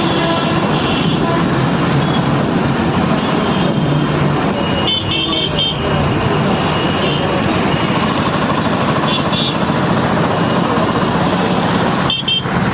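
Steady noise of busy road traffic, with short high-pitched horn toots about five seconds in, again near nine seconds and near the end.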